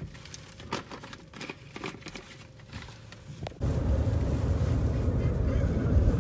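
Faint clicks and rustling, then, about three and a half seconds in, a cut to loud, steady, low road noise inside a moving car's cabin at highway speed.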